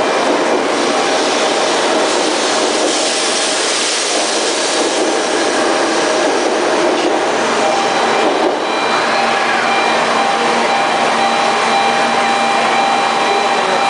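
Shinkansen 923-series "Doctor Yellow" inspection train pulling out of the platform right beside the listener, speeding up. It makes a steady rushing of air and wheels with a faint electric motor hum.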